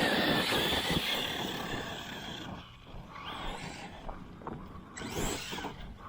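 Brushless motor and drivetrain of an Arrma Kraton 6S RC monster truck under throttle: a high whine that slowly falls and fades, then a few short throttle surges later on.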